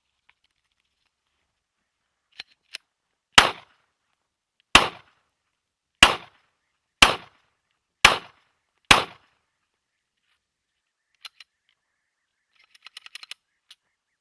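Glock 17 9 mm pistol fired six times at a steady pace, about one shot a second. A couple of faint clicks come before the shots, and a few clicks and a brief rattle follow near the end.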